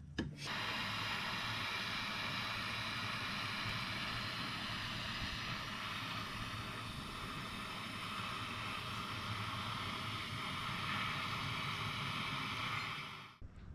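Butane soldering iron (Solder-Pro 100) burning with a steady hiss as its flame heats a cable lug for soldering; the hiss cuts off abruptly shortly before the end.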